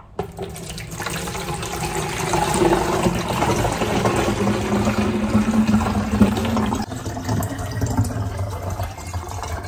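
Water poured from a filter jug into a large plastic water bottle, splashing as the bottle fills. The pour eases off about seven seconds in, leaving a quieter sound of moving water.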